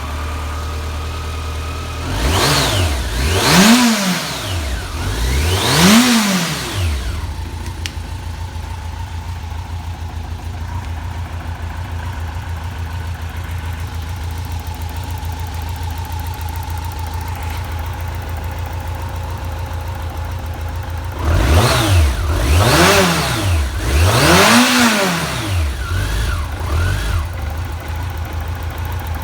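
BMW K1100RS motorcycle's inline-four engine idling steadily, blipped up and down in quick throttle revs twice: a set of three about two seconds in and another set about 21 seconds in. It revs up cleanly, with no abnormal noise, as the seller states.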